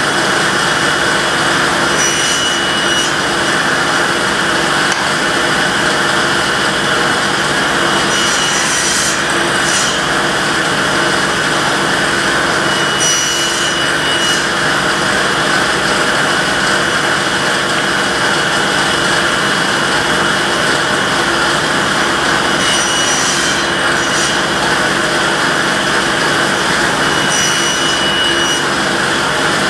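Table saw running steadily while wooden stretchers are pushed through the blade on a crosscut sled, making shallow tenon-shoulder cuts. Each cut adds a short, brighter hiss over the steady running, several times over.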